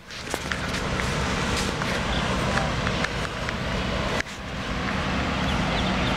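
A brood of baby poultry peeping in a heat-lamp brooder, short high peeps scattered over a steady low background rumble.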